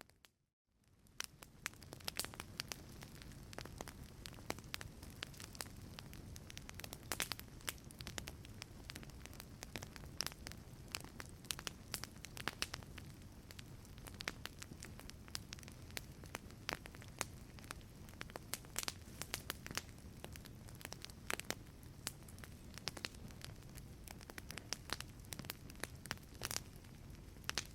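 Wood fire in a fireplace crackling, with frequent sharp pops and snaps over a steady low rumble of flames. The sound drops out briefly at the very start and fades back in within about a second.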